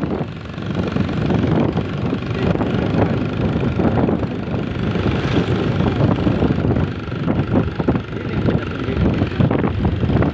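Wind buffeting the phone's microphone in a continuous, fluttering rumble, with a vehicle engine running underneath.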